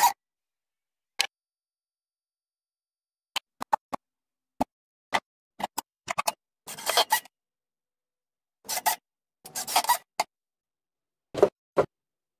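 Handling noise of locking C-clamps and plywood panels: scattered sharp clicks and knocks, then several short scraping rustles about half a second long, with silence between.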